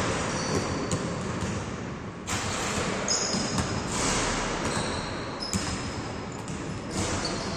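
Basketballs bouncing on a hard indoor court as players dribble, a string of separate thuds, with a few short high sneaker squeaks on the floor in between.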